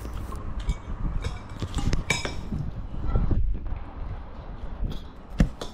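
Metal spoon and fork clinking and scraping against a ceramic plate while eating, a handful of separate clinks over a low rumble.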